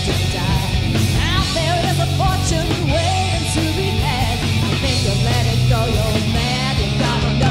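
Live band playing a heavy metal song: a woman singing lead over two electric guitars, bass guitar and drums.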